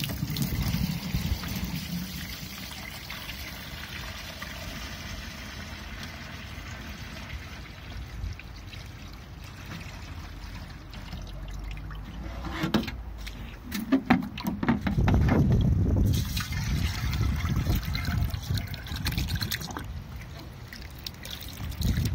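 Water draining from a plastic tub through a sink waste, trap and long pipe, trickling and pouring steadily. In the last several seconds a louder, rougher low rushing comes in, after a couple of short knocks.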